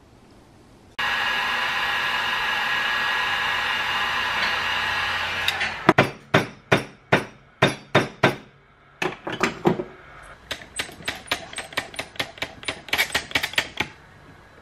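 A power tool runs steadily for about four and a half seconds and stops abruptly. Then a hammer strikes metal clamped in a bench vise, sharp ringing blows about two or three a second with a short pause. A faster run of lighter clicks follows and stops near the end.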